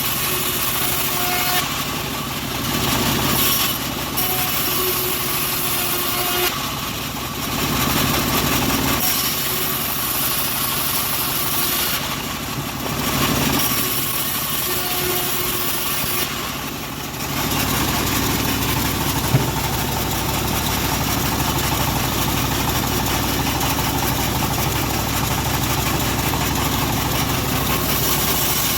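Engine of a homemade bandsaw mill running steadily while it saws a teak log, with a continuous sawing hiss that drops out briefly a few times.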